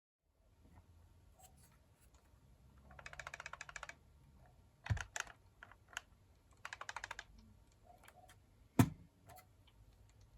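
A loose part rattling inside a plastic box light as it is shaken, in two short runs of quick clicks, with a few sharp knocks as the light is handled, the loudest near the end.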